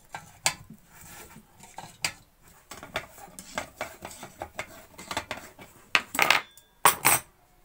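Metal tools working on a kerosene pressure stove: a spanner loosening the burner off its feed pipe while locking pliers hold the pipe. It gives a string of light metallic clicks and taps, with two louder, longer scrapes near the end.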